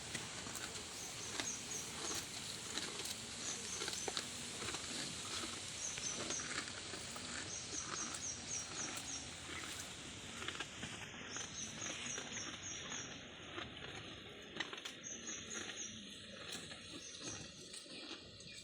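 Water buffalo grazing: grass tearing and chewing, heard as scattered soft clicks over a steady outdoor background. Short runs of high chirps repeat every couple of seconds.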